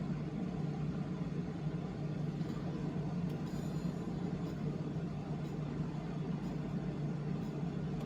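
A steady low hum of background noise, even throughout.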